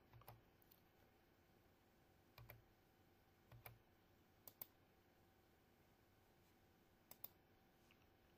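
Near silence: quiet room tone with a few faint, short clicks, two close pairs of them, and three soft low thuds.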